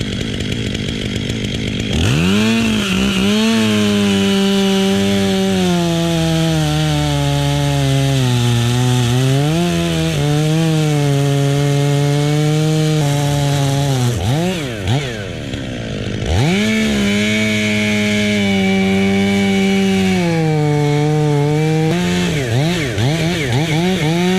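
Gas chainsaw cutting wood at full throttle, its engine note sagging under load and picking back up. It drops off about fourteen seconds in, revs up and cuts again, then ends with a few short throttle blips.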